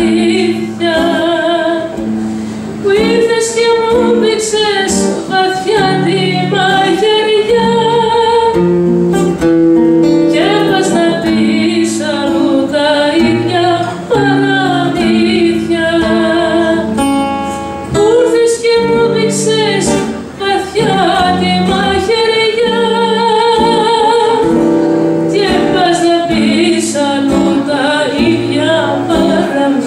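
A woman singing a Greek song with a wavering vibrato, accompanying herself on an acoustic guitar.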